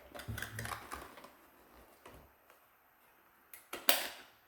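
Plastic clicks and rattles of a manual handheld mini sewing machine being handled and squeezed, a cluster in the first second, then one sharp snap, the loudest, about four seconds in.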